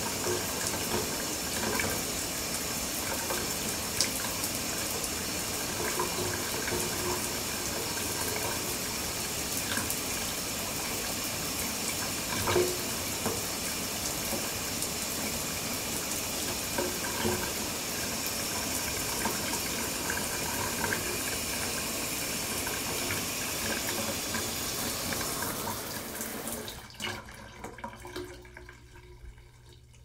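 Shower running: a steady hiss of water spray splashing, with now and then a sharper splash. Near the end the spray cuts off, leaving a few scattered drips and splashes as it fades out.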